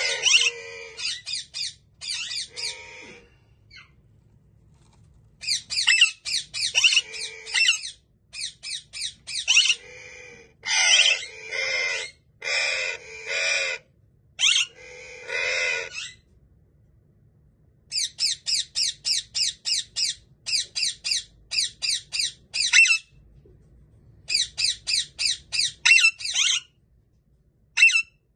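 Parakeet squawking: short calls repeated in quick runs of about two a second, with brief pauses between runs.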